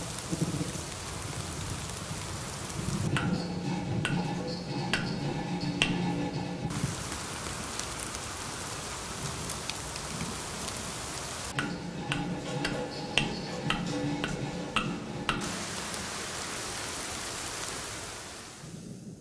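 Steady rain hissing down. Twice it drops away for about four seconds, replaced by a low hum and a quick run of clicks, before the rain hiss returns.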